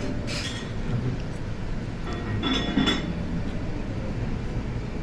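Light clinking, once just after the start and louder about two and a half seconds in, over a steady low rumble.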